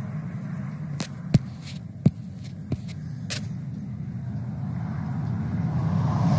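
Low steady rumble of a car, with a few sharp clicks between about one and three and a half seconds in, and a rising rush of noise near the end.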